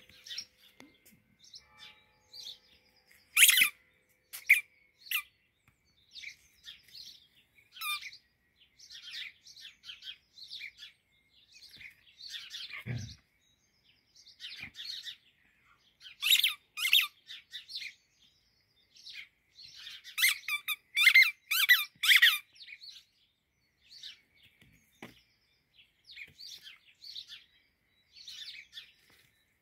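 Squeaky rubber toy ball squeaking again and again in short, high squeaks, with loud quick runs of squeaks about halfway through and again later, and softer high chirps in between.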